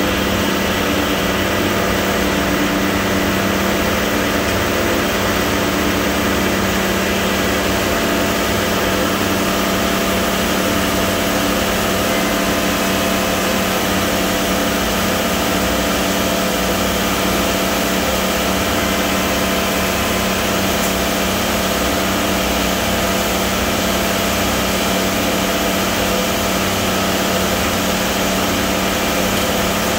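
Steady machinery drone at a concrete batch plant: a ready-mix truck's diesel engine running and the plant's central mixer drum turning as wet concrete pours from it into the truck's drum, with an even, unbroken hum.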